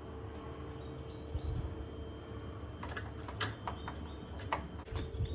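A few short sharp clicks and light knocks of the deadbolt's metal parts being handled and fitted, bunched about three seconds in with a couple more near the end, over a faint steady hum.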